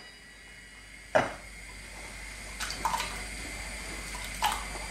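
A sharp metal clink from a stainless steel pot lid about a second in. Then cubed raw potatoes drop into a pot of water with small plops and splashes, a couple of seconds in and again near the end.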